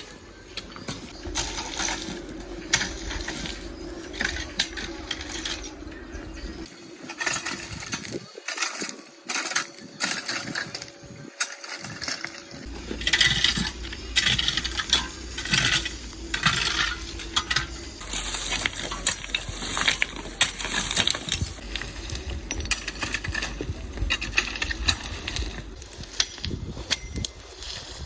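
Irregular clinks and knocks of hard objects being handled and set down, as in clearing up tools and stones, with a faint steady hum under the first two-thirds.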